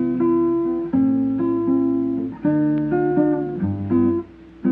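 Guitar playing a slow introduction of sustained chords, each struck and left to ring, roughly one a second, with a single low bass note near the end.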